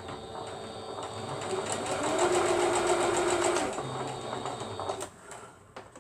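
Sewing machine stitching: it starts at once, runs faster and louder in the middle, then slows and stops about five seconds in.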